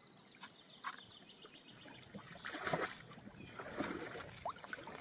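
Water swishing and trickling in a plastic gold pan as it is swirled in the stream, in uneven swells with a few light clicks.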